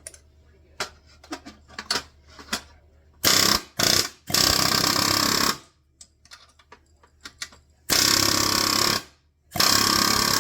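Pneumatic air hammer (Ingersoll Rand) driving rivets, running in five short bursts with pauses between them, starting about three seconds in. A few light clicks and taps come before the first burst.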